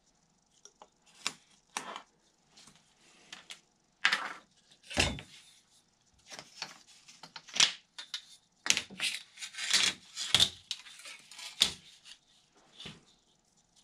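Irregular taps, clicks and scrapes of a steel straightedge and balsa spar stock being handled and marked on a workbench, busier in the second half.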